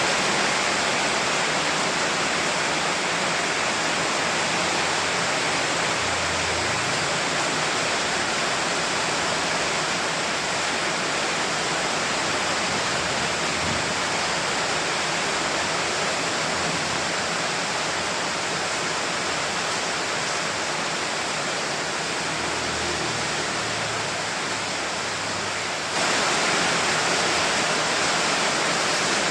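Steady, dense rain hiss with no separate drops standing out; it gets suddenly louder near the end.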